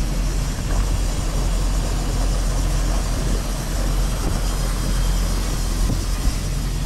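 Motorboat engines running at low speed: a steady low rumble under a wash of water and wind noise.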